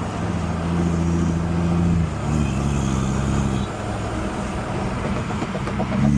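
Car engine running steadily at low revs, its note dropping in two steps, about two seconds and three and a half seconds in.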